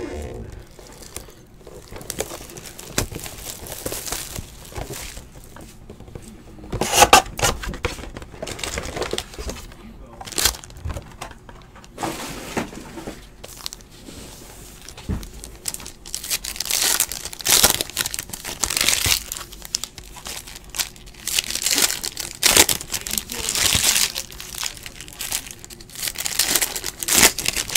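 Foil wrappers of trading-card packs crinkling and tearing as the packs are ripped open, in a series of irregular rustling bursts.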